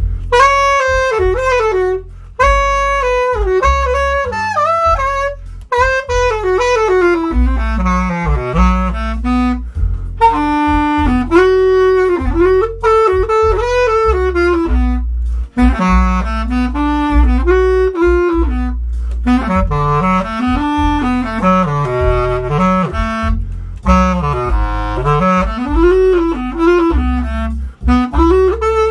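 Bass clarinet improvising a blues line, in phrases of bending, arching notes broken by short pauses, over a steady low bass accompaniment.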